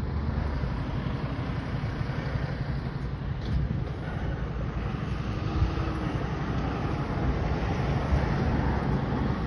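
Steady low rumble of a motor vehicle with road noise.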